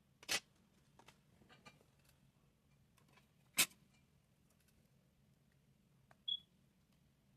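Light clicks and taps of small hard objects being handled: two sharper taps about three seconds apart, a few softer clicks between them, and a short high squeak near the end, over a faint low hum.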